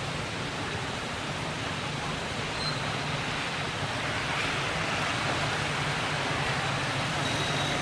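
Steady outdoor background noise with a low, continuous engine hum, typical of road traffic. No distinct monkey calls stand out.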